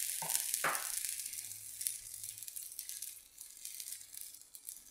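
Oats chilla frying in a little oil on a nonstick pan, sizzling and crackling softly on its freshly flipped second side, the sizzle dying away. Two brief clicks in the first second.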